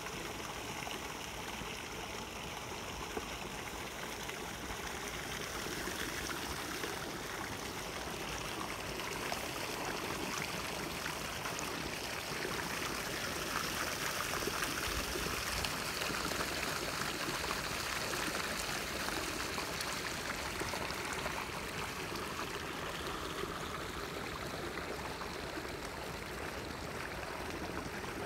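Water draining out of a flooded rice paddy, running and trickling steadily between the rice plants. It grows a little louder partway through.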